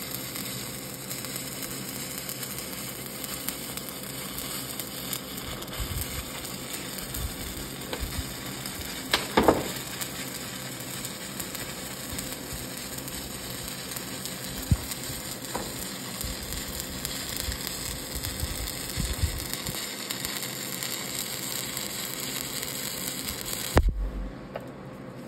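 Stick-welding arcs (SMAW) on a steel tube, two electrodes run off one shared lead, crackling and sizzling steadily, with a few louder pops. Near the end a sharp pop and the arc breaks off, leaving only a quieter background hum.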